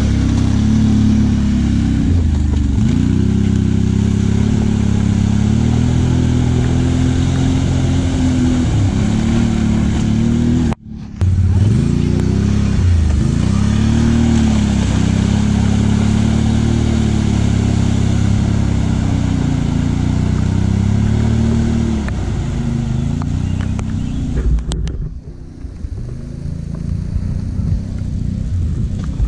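ATV engine revving hard, its pitch rising and falling again and again as the throttle is worked. There is a brief drop-out about eleven seconds in, and near the end the engine drops back under a rougher noise.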